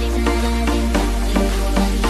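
Electronic dance music with a heavy sustained bass and a steady beat.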